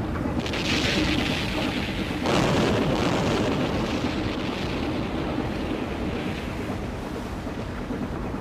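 Deep rumbling roar of explosions, swelling just after the start and again more strongly about two seconds in, then running on steadily and slowly easing.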